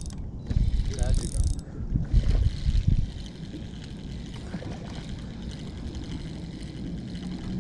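Spinning reel being cranked while a hooked fish is played in on a bent rod, under a low rumble that is heaviest in the first three seconds; a brief voice about a second in.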